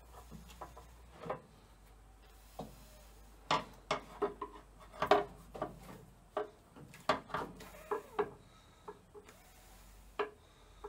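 A tractor water pump being handled and fitted against the front of the engine: irregular metal clinks and knocks with a few short scrapes, loudest about five seconds in.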